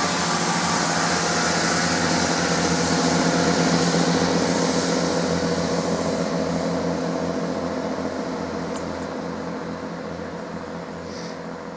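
Diesel engines of a GWR Class 165 Networker Turbo multiple unit running as the train pulls away, with a steady engine note and rail noise that grow fainter through the second half.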